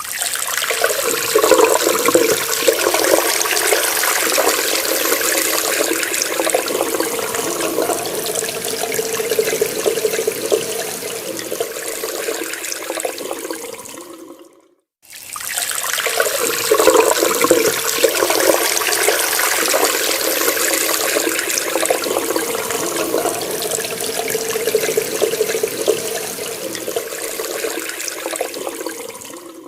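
Tap water running and splashing steadily. It stops abruptly about halfway through, then starts again after a brief silence and runs the same way, easing slightly toward the end of each run.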